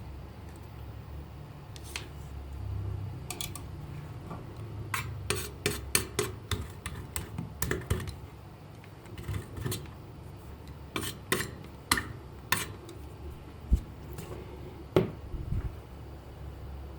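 Irregular light clicks and taps of small hard objects being handled, in quick runs, with a couple of duller knocks near the end.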